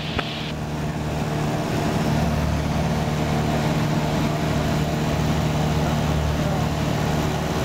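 Cessna 172's piston engine and propeller droning steadily, heard inside the cabin, growing slightly louder about a second in.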